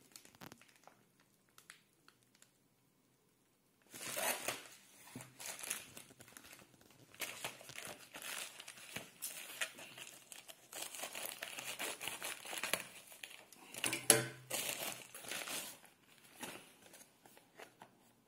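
A plastic mailer bag crinkling and rustling in irregular bursts as it is handled and cut open with scissors, after a quiet first few seconds.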